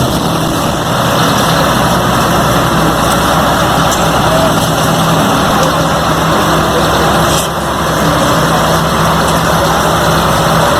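Diesel engine of an asphalt paver finisher running steadily under load, a constant low engine hum with the clatter of the working machine, dipping briefly with a click about seven and a half seconds in.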